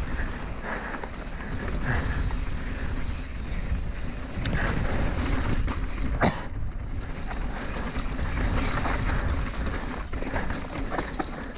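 Mountain bike rolling fast down a dry dirt singletrack: wind rushes over the camera microphone over the rattle and tyre noise of the bike. There is a sharp knock about six seconds in.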